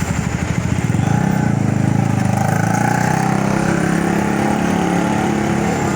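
A vehicle engine running close by, its steady note getting louder about a second in.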